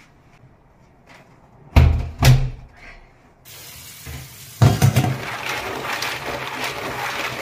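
Two dull thumps about two seconds in, then tap water running into a stainless steel bowl of mussels, louder from about a second later as hands scrub the mussels under the stream, their shells clattering against each other and the bowl.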